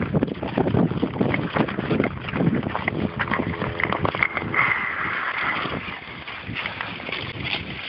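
Long-blade Nordic touring skates scraping and cutting over natural lake ice, stroke after stroke in an irregular clatter, with wind on the microphone.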